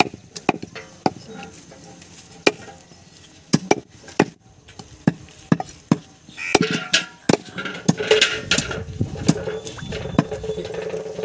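Heavy meat cleaver chopping goat meat into small pieces on a wooden log chopping block: a series of sharp, irregular chops, some in quick pairs.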